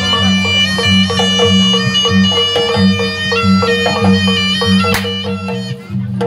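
Live jaranan (kuda lumping) gamelan music: a slompret, a reedy shawm, plays a nasal melody over drums and gongs in a steady beat. The music thins briefly near the end.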